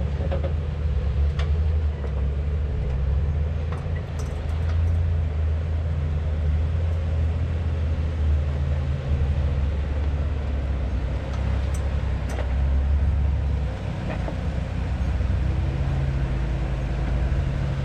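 Off-road vehicle's engine running low and steady while rock crawling, with a few faint clicks and knocks.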